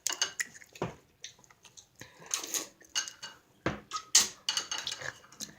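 Scattered clinks, knocks and short clicks of a bowl and utensils being handled, with a few brief noisy rustles.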